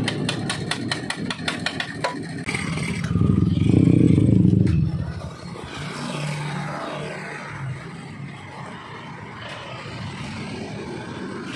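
Motorcycle engine running and revving, loudest about four seconds in, with a quick run of clicks near the start and metal parts clattering and scraping.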